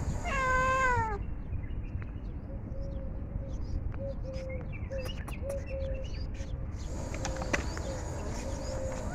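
Domestic cat meowing: one meow about a second long near the start, dropping in pitch as it ends, and another starting right at the end. Between them a faint thin whine holds on one pitch for several seconds.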